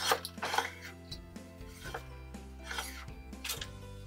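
Metal-on-metal scraping and rubbing in several short strokes as a milling machine's table is slid along its slide over the gib wedge.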